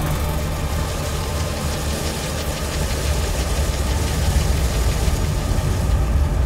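A steady, loud, low machine rumble with a hiss above it, running evenly throughout.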